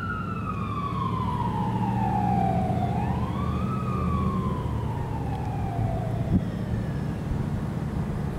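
Fire engine siren wailing in slow rise-and-fall sweeps, fading out after the second fall as the engine moves away, over a steady low rumble of engine and traffic. A brief knock about six seconds in.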